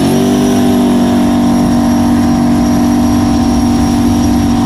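Single-turbo LS-based 5.3 V8 of a jet boat running hard at a steady high speed, with a thin high whistle held over the engine note.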